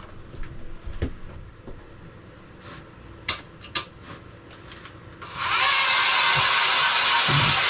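A few light clicks and knocks, then about five seconds in a power ice auger starts up suddenly and runs loudly and steadily, boring a hole through the ice.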